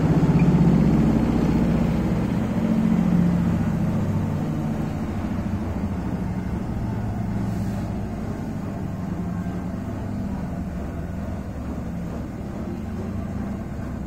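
Bosch front-load washing machine spinning at its 1000 rpm setting, a steady low motor-and-drum hum that slowly grows quieter over the first several seconds.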